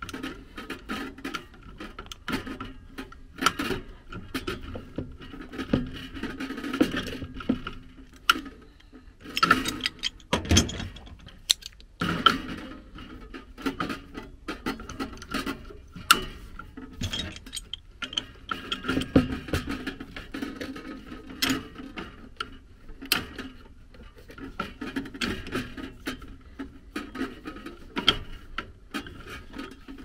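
Metal hand tools (pliers, locking pliers and a wrench) working on a furnace gas valve's pipe fitting, with irregular clicks, knocks and scrapes of steel on steel as the valve is loosened from the gas manifold.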